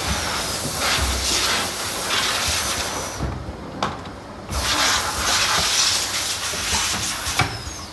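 Pneumatic air hissing from an automatic keycap press machine: two long hisses of a few seconds each, with a sharp mechanical click in the short pause between them and another click near the end.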